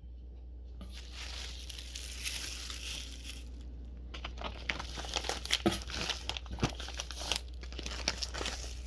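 Cardboard delivery box being opened by hand: a drawn-out tearing sound, then a run of crinkling and crackling packaging.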